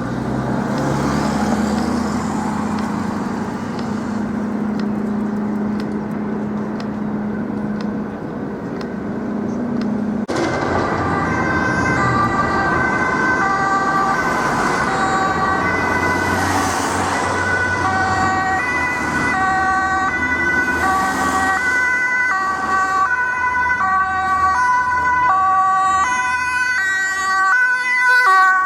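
Vehicle and traffic noise with a steady engine hum. About ten seconds in, after a cut, a Dutch ambulance's two-tone siren alternates steadily between a high and a low pitch, about once a second, with traffic noise underneath, loudest near the end.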